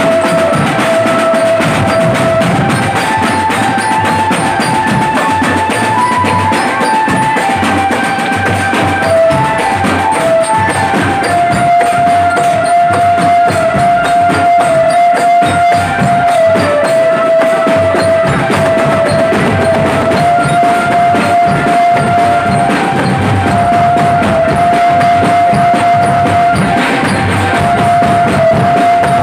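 A marching drum band playing live: bass drums and tenor drums beat a busy rhythm under a melody of long held notes.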